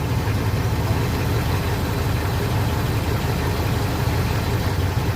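Cadillac 429 V8 idling steadily just after a cold start. It was brought to life with fuel poured into the carburetor after sitting a long time, and is left running to warm up.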